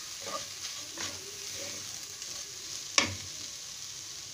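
Shredded boiled chicken sizzling in hot oil in a metal wok, turned with a wooden spatula that scrapes across the pan, with one sharp knock, the loudest sound, about three seconds in.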